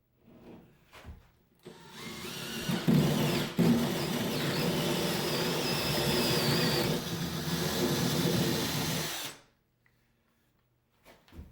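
Ryobi drill turning a 2-inch hole saw through a 90-degree right-angle attachment, cutting into a 2x4. The drill spins up about two seconds in, runs steadily under load for about six seconds, then stops abruptly.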